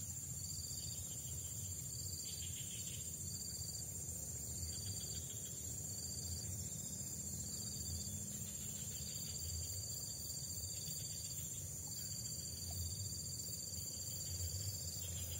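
Insects calling: a steady high-pitched trill, with another insect's shorter calls repeating over it about once a second, above a low background rumble.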